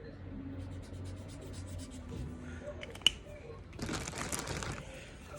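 Drawing or colouring on construction paper: a quick run of short scratchy strokes, a single sharp click about three seconds in, then a longer rustle of strokes on the paper near the end.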